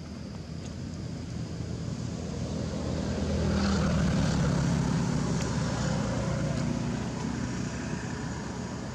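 An engine passing by: a low drone that swells to its loudest about four seconds in, then fades away.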